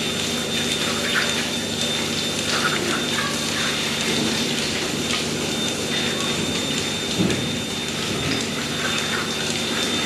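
Water gushing from a hose as the milking clusters are washed down after milking, over a steady machine hum.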